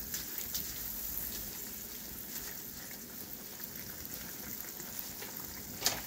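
Chicken adobo, chicken pieces in soy sauce and vinegar, sizzling steadily in a nonstick frying pan on the stove. A few light taps from the stirring spatula come in the first second, and there is a single sharp knock near the end.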